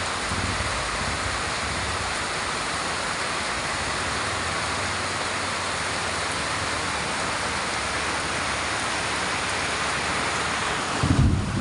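Heavy rain pouring down as a steady, even hiss. Near the end, a burst of low rumbling comes in.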